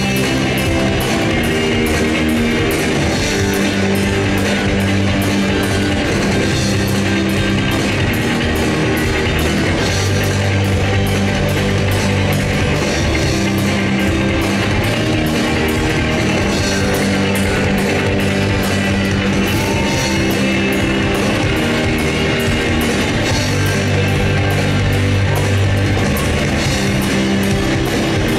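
Rock band playing live: electric guitars, bass guitar and drum kit with a fast, steady beat.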